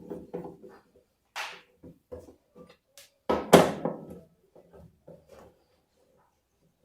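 Scattered knocks and clatter of hand tools on the washing machine's metal parts as the plate is unbolted, with two louder clatters about a second and a half in and near the middle.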